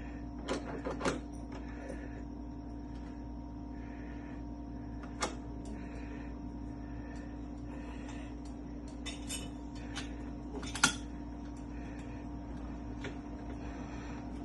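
Scattered sharp metallic clicks and taps as mortise lock hardware and tools are handled, the loudest near the end, over a steady hum.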